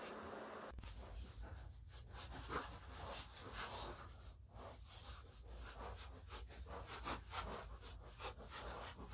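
Hand sanding of body filler with sandpaper on a sanding block, a faint scratchy rubbing in repeated strokes about two a second.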